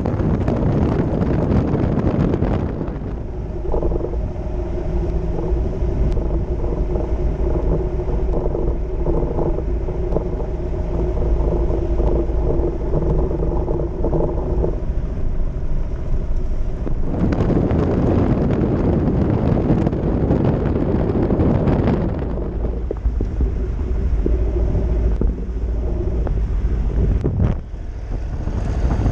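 Wind buffeting the microphone of a moving motorcycle, with the motorcycle's engine running steadily at cruising speed underneath. The wind is loudest near the start and again about two-thirds of the way through; in between, the steady engine hum comes through clearly.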